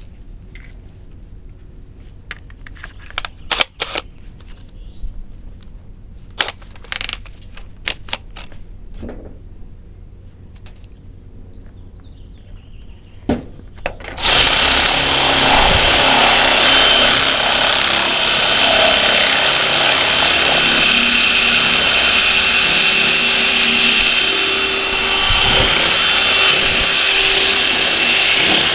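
A few scattered metal clicks and clinks, then about halfway through an electric drill starts and runs steadily at full power, boring into a steel lock cylinder.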